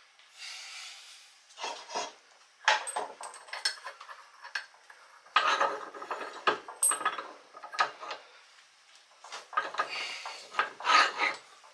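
Irregular metal clinks and scraping of a bolt and hand tools as the bolt is worked into a snug bushing hole.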